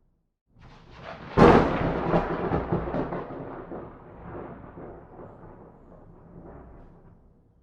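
A single thunderclap. A low rumble builds, then a sharp crack comes about a second and a half in, followed by a long rolling rumble that fades away over several seconds. The sound drops to dead silence just before and just after, as in a looped thunder recording.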